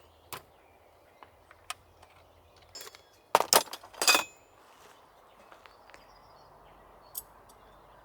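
Hard objects being handled: a quick cluster of sharp clinks and knocks, some ringing briefly, about three to four seconds in, among a few lighter scattered clicks.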